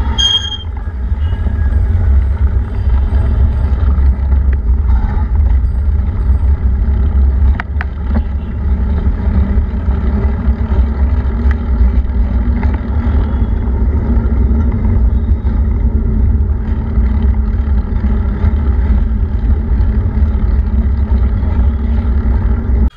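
Steady engine drone with a heavy low rumble, holding an even pitch without revving.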